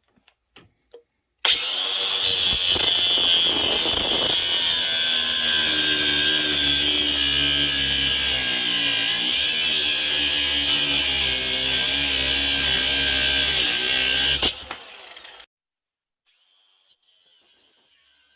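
Ryobi 18V cordless angle grinder with an abrasive cut-off wheel cutting through a steel bolt: it starts abruptly, runs loud and steady with a high whine and grinding for about thirteen seconds, then stops and spins down. A few light clicks come just before it starts.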